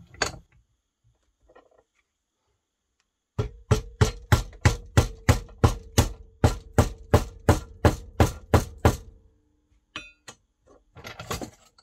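A mallet drives a wooden handle down onto the tang of an old gouge held in a bench vise. It lands a steady run of sharp knocks, about three a second for some five seconds, and each blow rings briefly.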